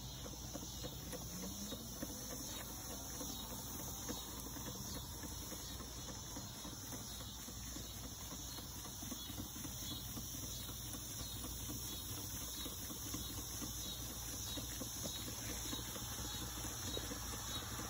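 Weeden No. 20 toy steam engine running under its own steam, its small vertical slide-valve engine and flywheel making a fast, even patter of exhaust puffs with a steady hiss. The engine was freshly repaired, with O-rings on the gland nuts and the valve face and cylinder trued, so the test run is holding pressure.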